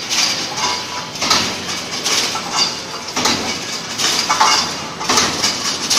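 Brick force mesh welding machine running, with a metallic clatter that swells about once a second as it cycles through its welds and wire feed.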